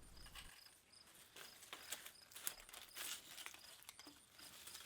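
Faint crackling and rasping of a fore plane taking thick, crunchy shavings off a board, in short irregular bursts.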